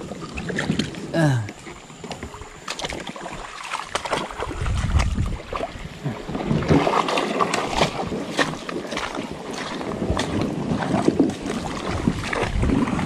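Kayak on moving river water: water splashing and sloshing against the hull, with scattered knocks from the paddle and hull.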